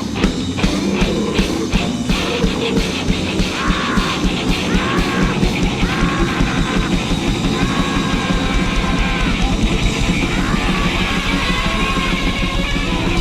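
Noisecore music: fast drumming and distorted guitar in a dense wall of noise, with harsh yelled vocals held in a run of long cries through the middle.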